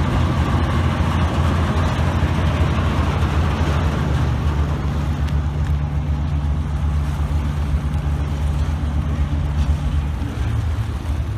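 Diesel engines of FDNY fireboat Marine 1 ('Three Forty Three') running at low speed while the boat manoeuvres in to dock: a steady deep drone with some water wash above it.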